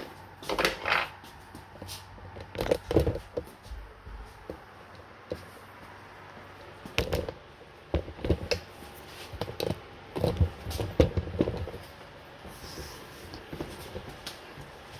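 Irregular knocks, bumps and rustles of handling: tools and a leather belt being picked up and set down on a workbench, with the camera being moved.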